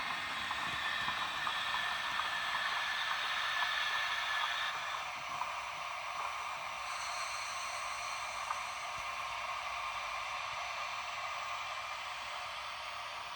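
Steam hiss and bubbling from a DCC sound decoder, played through a tiny model-locomotive speaker. It sounds thin, with no bass, and its tone shifts about five seconds in.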